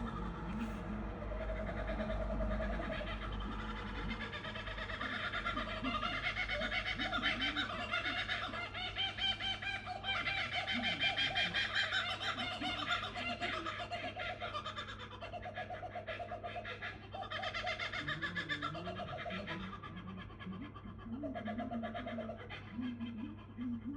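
Two kookaburras calling together in a long chorus of rapid, repeated notes that builds to its loudest around the middle and then tapers off.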